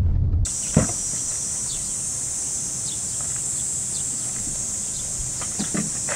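A steady high-pitched chorus of insects, with a few short bird chirps, behind several knocks and clatters of camping gear being lifted out of a car's open boot. A car's low driving rumble cuts off about half a second in.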